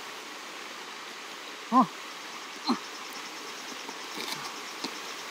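Hands and a wooden-handled digging tool working loose soil, with light scrapes and ticks against a steady outdoor hiss. A short voice-like cry that rises and falls in pitch comes about two seconds in, the loudest sound here, and a fainter one follows a second later.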